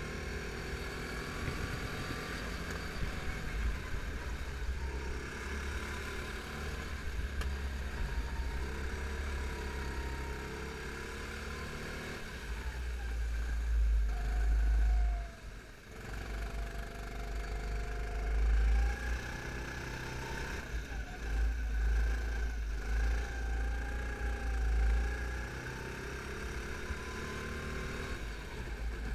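Rental kart engine running through a lap, its pitch rising and falling with the throttle and dropping off briefly about halfway through, over a heavy low rumble of wind on the onboard microphone.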